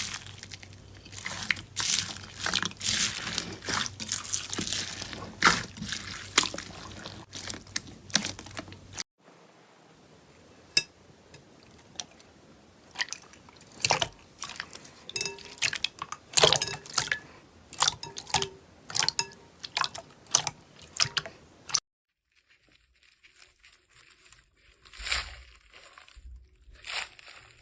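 Slime being squeezed and poked close to the microphone, giving crunchy crackles and sharp clicks. The sound changes abruptly twice, about nine seconds in and again near the end, as one slime gives way to another.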